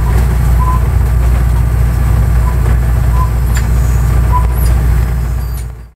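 EMD GT36HCW diesel-electric locomotive heard from inside its cab while running along the track: a loud, steady low diesel drone with rail noise and a few brief high squeaks. It fades out quickly near the end.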